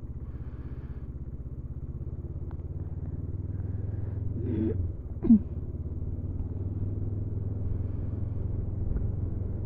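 Honda CB500F's parallel-twin engine running steadily under way, its low note building a little, then dipping briefly with a short louder sound about five seconds in.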